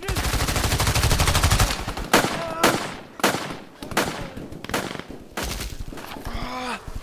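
Gunfire: a rapid burst of automatic fire for about the first second and a half, then a string of separate single shots about every half second.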